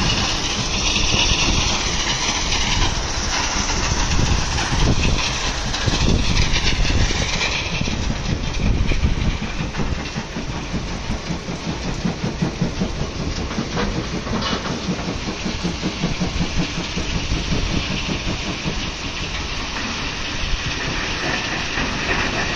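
Stone-crushing plant running: crusher, vibrating screens and conveyor belts making a steady mechanical rumble with a dense, continuous rattle of stone.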